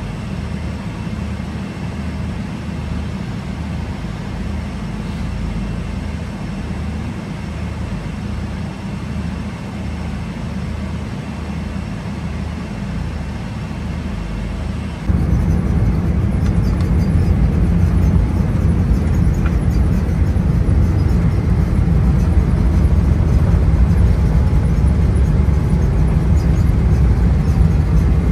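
Steady drone of engine and airflow noise inside a Boeing 777-300ER cabin. About halfway through it jumps suddenly louder, with more hiss, and then holds steady.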